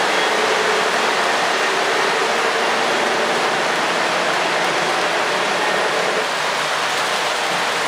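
Steady rushing rumble of O-gauge model boxcars rolling past on three-rail track. It eases slightly about six seconds in.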